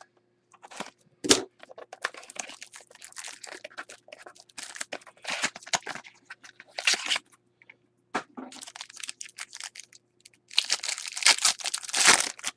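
A trading-card pack being opened by hand: a sharp crack about a second in, then on-and-off rustling and scraping of card stock, and near the end a loud, dense crinkling and tearing of the foil wrapper around the cards.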